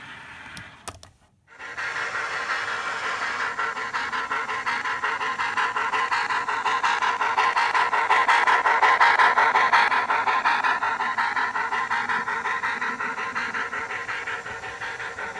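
H0-scale model train, a steam locomotive hauling coaches, running past close by with a fast rhythmic running sound. It starts after a brief quiet gap about a second in, grows louder to a peak about nine seconds in, then fades as the train moves away.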